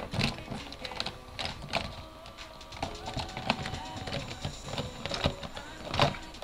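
Hands rummaging through small items in a container: irregular clicks, taps and rustling as things are moved around and picked through.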